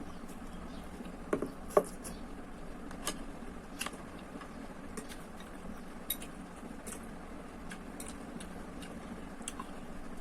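Scattered light clinks and clicks of eating utensils against a bowl, two louder ones about one and a half seconds in, over a steady low hum.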